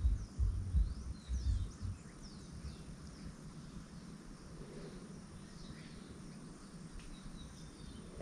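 Birds chirping in short, quick calls several times over steady outdoor background noise, with a thin steady high tone throughout. Low thumps and rumbles on the microphone in the first two seconds.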